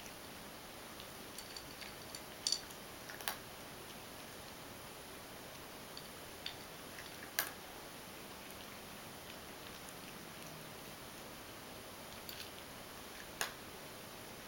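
A ragdoll cat eating dry kibble from a stainless steel bowl: scattered sharp crunches and clicks, a few seconds apart, over a faint steady hiss.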